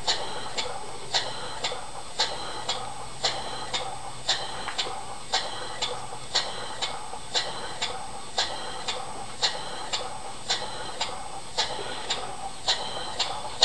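Small model horizontal steam engine running slowly, with a sharp, even tick about twice a second over a steady hiss.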